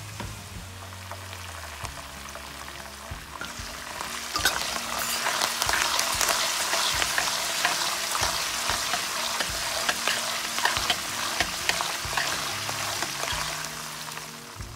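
Curry leaves sizzling and crackling in hot oil with frying peanuts and chillies, stirred in a steel pan with a metal spoon. The sizzle flares up sharply about four seconds in, when the leaves hit the oil, and eases off near the end.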